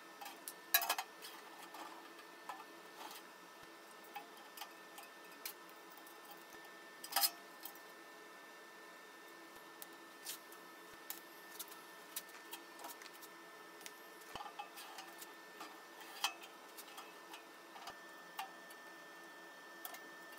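Scattered light clicks and clinks of steel pieces being set down and clamped on a sheet-steel stove top, two of them louder, about a second in and about seven seconds in. A faint steady hum with a thin high tone runs underneath.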